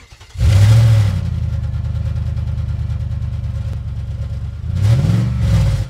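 Car engine: a rev about half a second in, then steady running, and a second rev that rises and falls near the end before it cuts off sharply.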